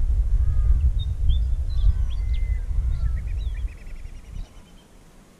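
Wind rumbling on the microphone, dying away a little under four seconds in. Over it, birds chirp, with a quick run of repeated notes near the middle.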